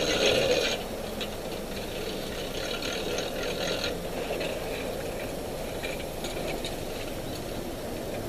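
Small aluminium Sea Nymph 12K boat being pushed off a submerged boat trailer, its hull scraping and rattling on the trailer at the start and again about three seconds in, over a steady low rumble.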